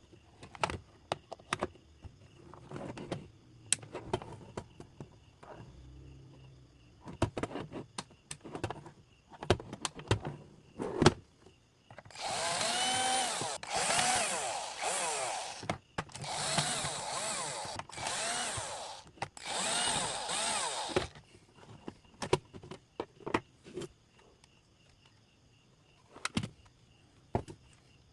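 A small power drill runs in six short bursts of a second or two each, its motor pitch rising and falling. Before and after the bursts come scattered clicks and knocks of handling.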